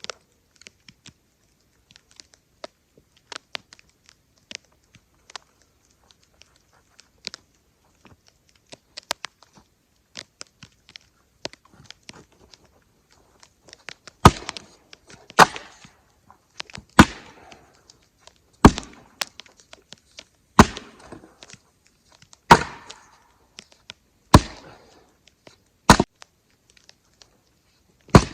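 Heavy thuds of firewood rounds being tossed into a pickup truck bed, one about every two seconds from about halfway in. Before that there are only faint knocks and clicks.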